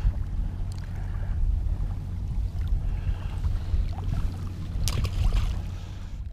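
Wind rumbling on the camera microphone at the river's edge, with a short sharp sound about five seconds in.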